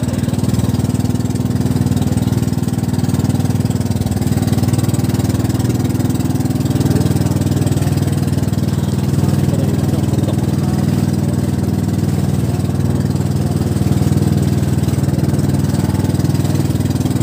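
A motor vehicle's engine running steadily and loudly at an unchanging speed.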